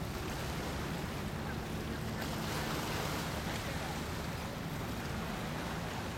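Seaside ambience: steady wind on the microphone over water washing against a rocky shore, swelling slightly in the middle.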